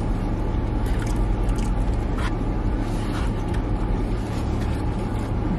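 Chewing a mouthful of food with lip smacks, and a few light clicks of the eating, over a steady low hum inside a parked car's cabin.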